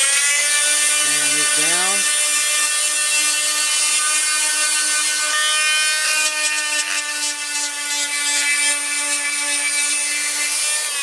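Electric detail sander running steadily with a high motor whine as it sands the heel of a guitar neck, taking wood off to change the neck angle so the strings rise higher over the resonator cone.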